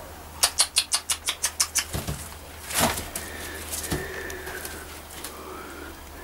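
Guinea pigs moving about on newspaper and hay in a wooden hutch: a quick run of about ten sharp paper crackles in the first two seconds, then a short rustle. A faint, drawn-out low call follows near the middle.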